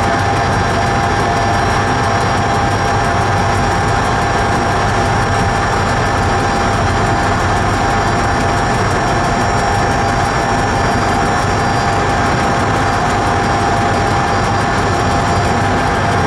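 Train running through a railway tunnel: a steady, loud rumble of wheels on rail, with a constant whine over it that holds the same pitch.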